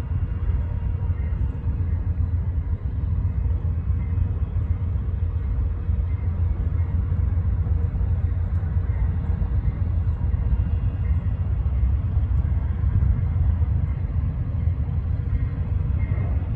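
Steady low rumble of a moving vehicle, with faint steady tones above it.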